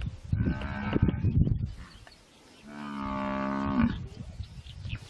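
African buffalo bellowing in distress as hyenas attack it, calling for help from its herd. Two long moaning bellows: a rougher one about half a second in, and a longer, steadier one about two and a half seconds in that drops in pitch at the end.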